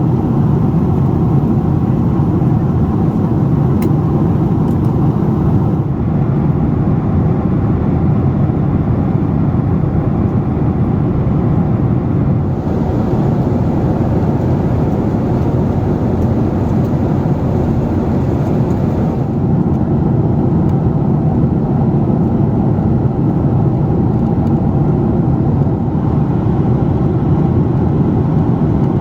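Steady cabin noise of a Boeing 767-400 jet airliner in flight: engine and airflow noise, mostly low in pitch and unchanging.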